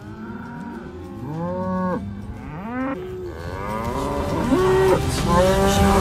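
Beef cattle bawling: several overlapping moos that come more often and grow louder toward the end. Calves and cows are calling to find each other after being separated on a cattle drive, not yet mothered up.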